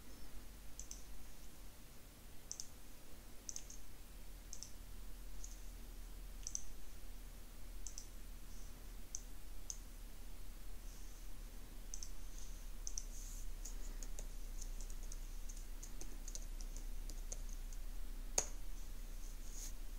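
Clicks of a computer mouse and keyboard: sparse single clicks at first, then a quicker run of clicks over the last several seconds, with one sharper click near the end. A faint steady hum runs underneath.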